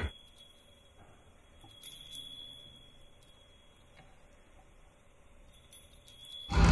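Loud electronic music cuts off abruptly, leaving a quiet gap with faint, high, chime-like ringing tones and a few soft ticks. The music comes back in loudly near the end.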